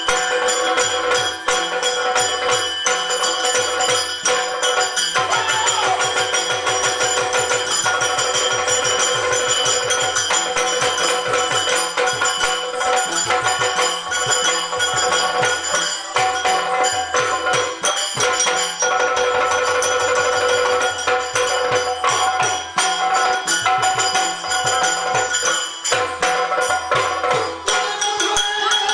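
Yakshagana drum ensemble playing a continuous instrumental dance passage: chende and maddale drums beating a fast, even rhythm, with small hand cymbals ringing and a steady drone held underneath.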